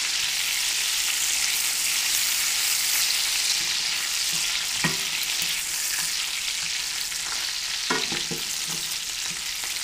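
Butter, garlic and anchovies sizzling steadily in a stainless steel skillet while a wooden spoon stirs them, the anchovies breaking down into the butter. A brief knock comes about halfway through.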